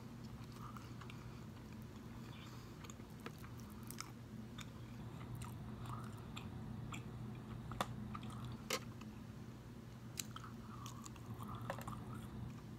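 Close-up chewing and biting of turkey bacon, with scattered small sharp clicks and crunches, over a faint steady low hum.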